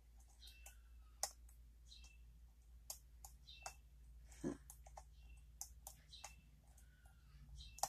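Faint, irregular small clicks and light scrapes of a lock pick working the pins of a Steel Pinnings challenge lock under a tension wrench. There is one somewhat heavier knock about halfway through.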